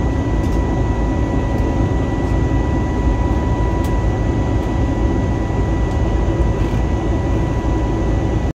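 Steady cabin noise inside an Airbus A320neo climbing out after takeoff: a deep, even rumble of engines and airflow with a faint steady high tone. It cuts off suddenly near the end.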